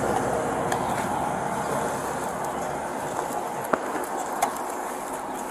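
Steady noise of highway traffic and wind picked up by a body-worn camera, slowly fading, with a couple of short clicks in the second half.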